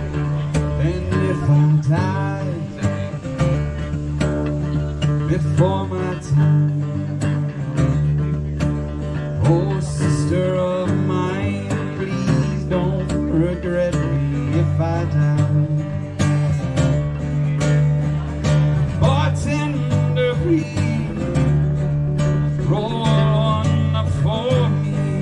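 Live acoustic music: two acoustic guitars strummed and picked, with a man singing at times.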